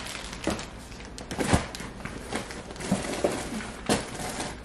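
Groceries being unpacked from a cardboard delivery box: scattered rustles of packaging and light knocks as items are handled and lifted out.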